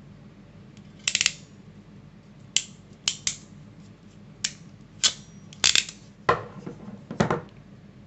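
Ratcheting crimping plier clicking as its handles are squeezed to crimp a pin terminal onto a wire: about ten sharp metallic clicks at uneven intervals.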